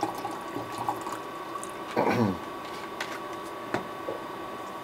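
Water being poured into a container for a lemonade drink, fading out within the first second, followed by two sharp knocks about three seconds in and just before four.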